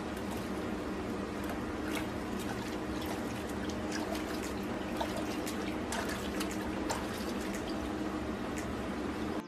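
Water running and trickling steadily into a bubble-bath-filled bathtub, with small splashes and clicks scattered throughout.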